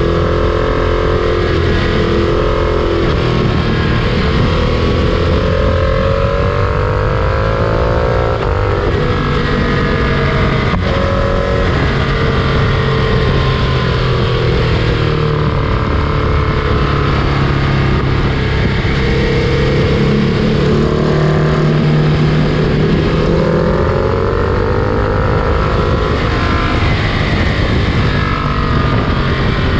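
Freight train running: a steady, loud rumble and rush of the moving train, with a droning tone that slowly rises and falls in pitch.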